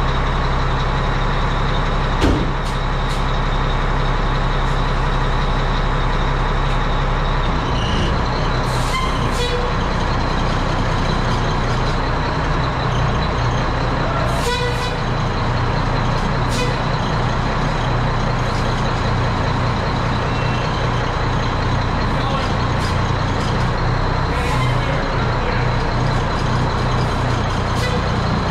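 1988 Mack CF fire truck's diesel engine idling steadily while it builds air pressure, with a few short air hisses and a click. The engine note shifts about seven seconds in.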